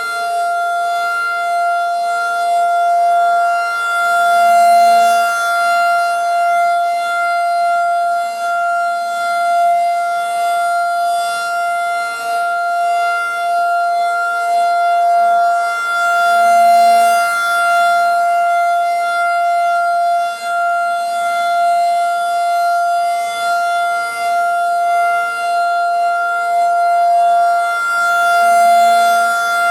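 Federal Signal 2001-DC outdoor warning siren sounding its steady alert tone, one held pitch with strong overtones that swells and fades about every 12 seconds as the rotating siren head sweeps past. This is the 3-minute alert signal of a quarterly nuclear-plant warning siren test.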